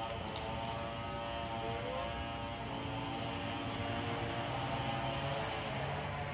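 An engine running steadily in the background, a constant mechanical hum.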